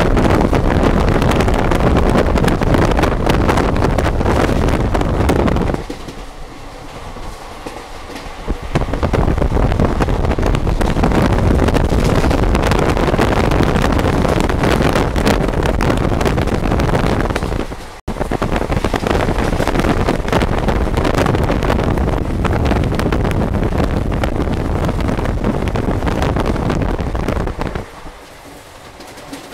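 Express train running at speed, heard from an open coach doorway: a steady rumble of wheels on track mixed with wind buffeting the microphone. It is quieter for a few seconds about six seconds in and again near the end, with a split-second break just past halfway.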